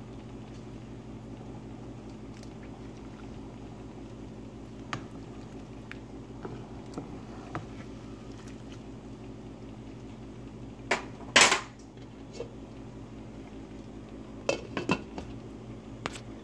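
Cookware clattering over a steady low hum: a pan of shrimp simmering in sauce, with small ticks of bubbling and stirring, then a loud clatter about eleven seconds in and a few sharp knocks near the end as a glass lid is handled and set on the pan.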